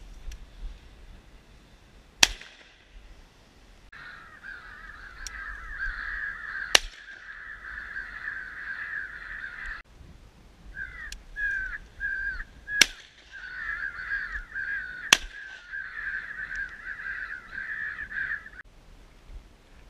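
Four shotgun shots a few seconds apart, the loudest sounds, over a thick chorus of crows cawing that breaks off for about a second in the middle and stops near the end.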